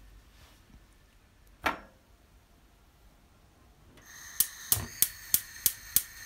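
A single knock, then, about four seconds in, gas starts hissing from a Profilo gas hob burner while its spark igniter clicks about three times a second, lighting the burner under a pot.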